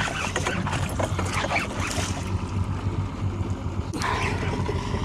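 Shimano Saragosa spinning reel being cranked against a big hooked fish, its gears ticking and clicking. Under it runs the steady low hum of the boat's Yamaha outboard motor.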